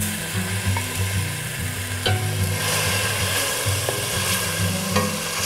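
Ground spice paste sizzling in hot oil in a stainless steel pot as it is sautéed. A wooden spatula scrapes it from a glass blender jug and stirs it, with a few light knocks. The sizzle thickens about halfway through, over a low steady hum.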